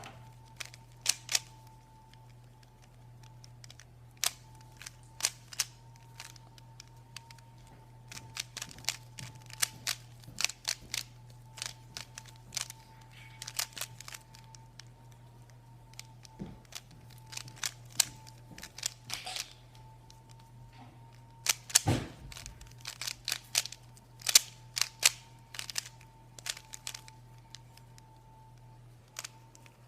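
Rubik's Cube being turned by hand in a timed solve: rapid, irregular clicks of the layers twisting and snapping into place, coming in quick bunches with short pauses between moves.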